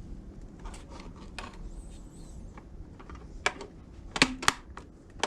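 Plastic parts of a car instrument cluster being handled and pressed together, with several sharp clicks as the little plastic tabs snap into place, the loudest in a quick group about four seconds in.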